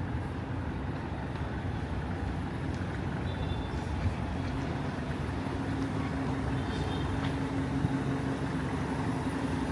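City street traffic with a vehicle engine running close by, its hum growing stronger about halfway through. Two short high beeps sound a few seconds apart.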